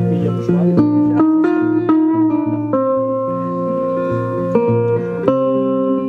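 Metal-bodied resonator guitar playing an instrumental passage. A run of quickly picked single notes gives way to a chord struck about two and a half seconds in and another near the end, each left to ring.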